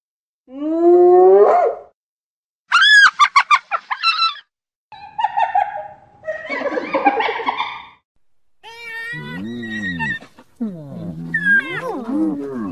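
Spotted hyenas calling: a rising call about half a second in, then a rapid run of short, high notes, followed by a string of lower calls whose pitch wavers up and down.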